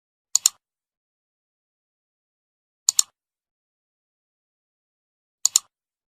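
Cartoon sound effect of sharp double clicks, played three times about two and a half seconds apart, with dead silence between them.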